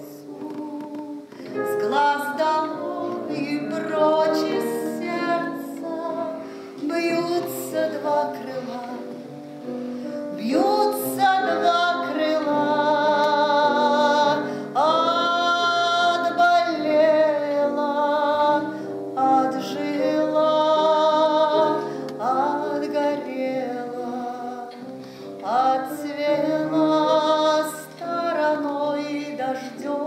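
A woman singing a slow song solo in a full, operatic voice with wide vibrato on long held notes, accompanied by chords on a Casio Celviano digital piano.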